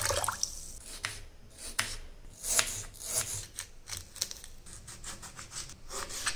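Kitchen knife slicing green chilli and tomato on a wooden cutting board: irregular short cuts and taps, about one to two a second. A moment of running tap water at the very start.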